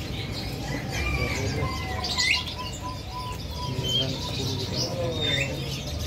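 Caged zebra doves calling: runs of soft coos with higher chirps over them.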